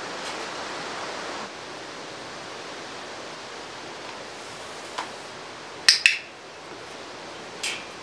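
A training clicker gives a sharp double click about six seconds in, marking the parrot's fluffed-up bathing response for a reward, with a fainter tap just before and another near the end. A steady hiss runs underneath, louder for the first second and a half.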